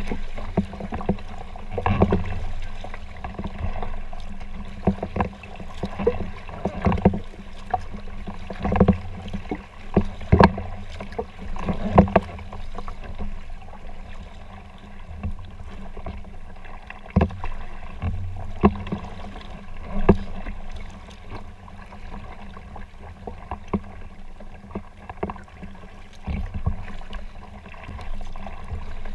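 Kayak being paddled: irregular splashes and knocks of the paddle strokes over a steady low rumble of water and moving air, busiest in the first half and sparser later.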